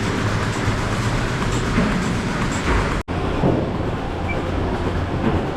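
Steady mechanical rumble and hum of a working 60-bail rotary milking shed: the platform turning and the milking machinery running. It drops out for an instant about three seconds in.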